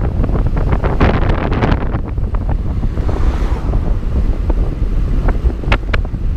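Wind buffeting the microphone of a camera on a moving bicycle, a loud, steady low rumble. Short clicks and knocks are scattered through it.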